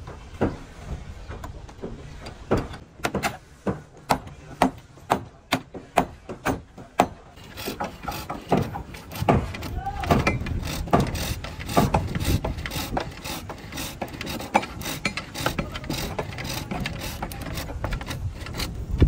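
Hammer blows on wood: sharp knocks about two a second for several seconds, then quicker, more irregular knocking from about eight seconds in.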